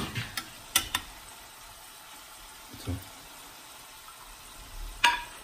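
Kitchenware clicking and knocking as plates are handled: two sharp clicks about a second in, a duller thump, then a louder knock with a short ring near the end, over a steady low hiss.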